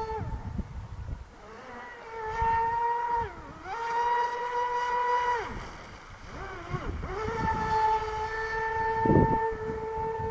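Stock RC boat's motor whining in repeated throttle bursts, the pitch gliding up as it speeds up, holding steady, then dropping off; the longest run starts about seven seconds in. A brief thump about nine seconds in.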